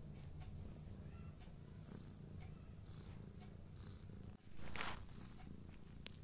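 Domestic cat purring steadily while kneading a shaggy plush pillow, with soft rustling of its paws and claws in the fabric about twice a second. One brief louder rustle comes near the end.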